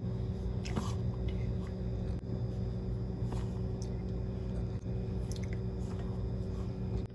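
Flour being poured from a plastic measuring cup into a glass mixing bowl, with soft shuffling and a few faint clicks of the cup against the bowl, over a steady low hum.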